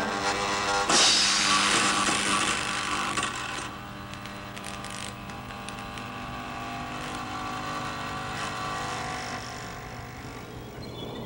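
Title theme music ending on a held chord, with a loud crash-like hit about a second in, after which the chord slowly fades.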